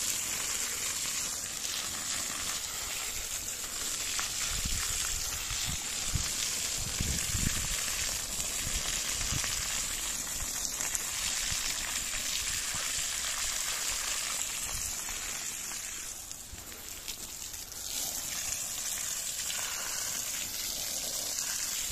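Water spraying from a garden hose onto soil, a steady hiss and splash as it pools on the ground. It eases for a moment about three-quarters of the way through, then picks up again.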